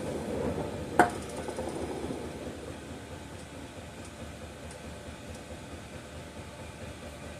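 A single sharp click about a second in, over steady low background noise.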